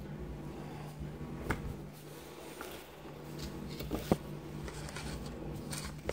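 A plastic spoon stirring slime in a plastic cup: soft scraping and handling noise, with two sharp clicks of spoon and cup, about a second and a half in and again around four seconds, over a steady low hum.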